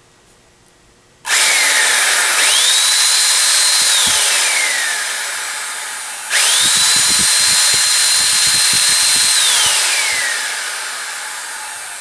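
The brushed electric motor of a Eureka Airspeed One vacuum cleaner, run bare in the hand with its fan cover off, is switched on twice. Each time it spins up quickly to a loud, steady high whine, holds for a few seconds, then winds down in pitch after the power is cut. It runs smoothly enough that the owner judges it pretty good, hinting that the clog of debris, not the bearings, was behind the vacuum's loudness.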